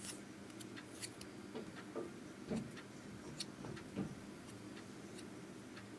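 Faint, irregular light clicks and a few soft knocks over a low steady hum, from fingers tapping and handling a smartphone during use.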